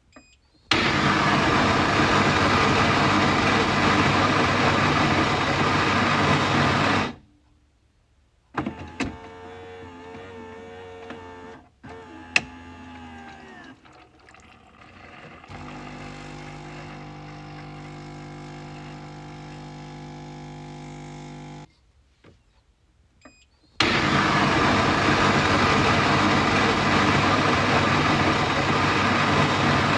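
Coffee machine working through its cycle: a loud motor run of about six seconds, then quieter wavering whirring with a sharp click, a steady lower hum for several seconds, and near the end another loud motor run of about six seconds.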